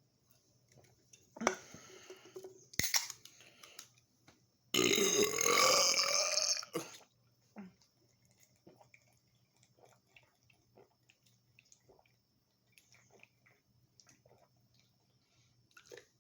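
A person's long, loud burp about five seconds in, lasting about two seconds and wavering in pitch, brought up by chugging cans of carbonated Red Bull energy drink. A shorter, quieter sound and a sharp click come a second or two earlier.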